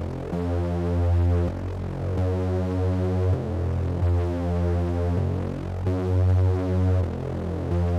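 Electronic music: sustained chords over a deep bass, changing about every two seconds, with no drums.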